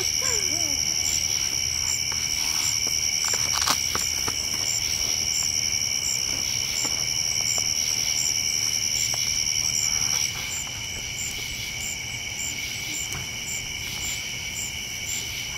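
Night insect chorus: several crickets trilling steadily at different pitches, with a higher chirp pulsing about twice a second; the highest, loudest trill stops about ten seconds in. One sharp pop about four seconds in.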